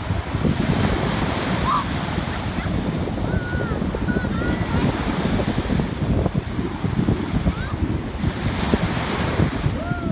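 Small surf breaking and washing up the sand at the water's edge, with two hissing washes, one about a second in and one near the end. Wind buffets the microphone with a steady, gusty rumble.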